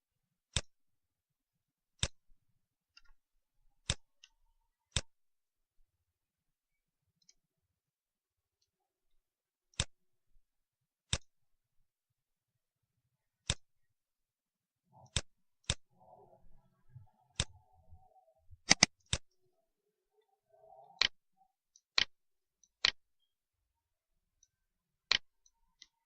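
Computer mouse clicking: single sharp clicks every second or few at irregular intervals, with a faint low rustle through the middle stretch.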